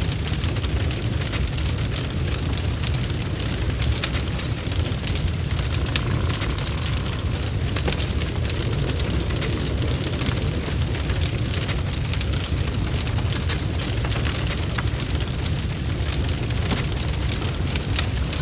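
Wood fire crackling: a steady low rumble of burning with many quick, sharp pops and snaps scattered throughout.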